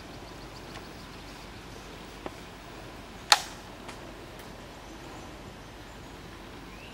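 Quiet outdoor ambience, a steady hiss, broken by one sharp, loud click about halfway through and a fainter click a second before it. A short, faint rising chirp comes near the end.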